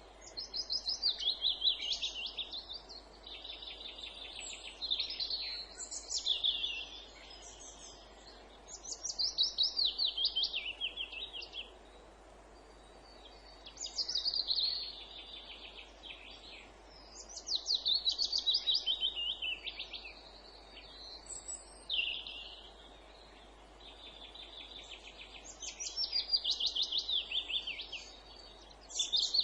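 A songbird singing. Each phrase is a fast run of repeated notes that falls in pitch and lasts about two seconds, and the phrases repeat every four seconds or so over a faint steady hiss.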